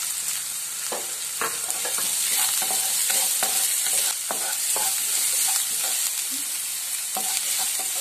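Chopped onion frying in hot oil in a nonstick pan, a steady high sizzle, while a wooden spatula stirs it with irregular scrapes and clicks against the pan.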